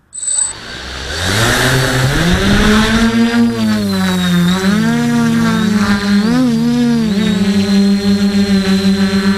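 DJI F450 quadcopter's brushless motors spinning up for takeoff: a hum that rises in pitch over the first couple of seconds, then wavers up and down as the craft climbs and settles into a hover, with its pitches parting and rejoining. A brief high beep sounds just at the start.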